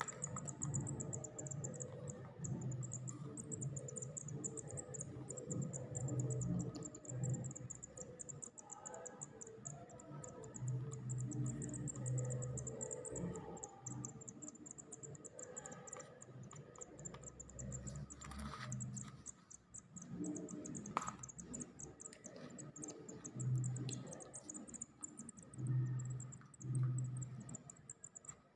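Nestling songbirds begging with a thin, high-pitched cheeping that runs on as a fast continuous trill. Low dull rumbles come and go underneath.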